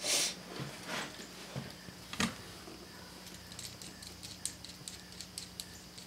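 Handling a small 12-volt starter solenoid: a clatter at the start, a sharp click a little past two seconds, then a run of small, quick metallic ticks as a nut is turned on its terminal stud.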